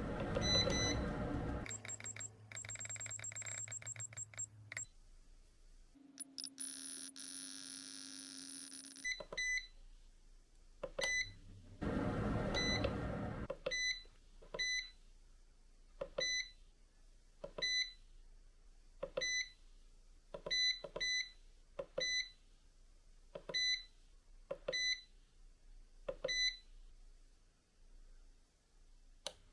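Short electronic beeps, one roughly every second and a half, each with a short burst of noise, after a brief run of fast clicks and a steady hum earlier on.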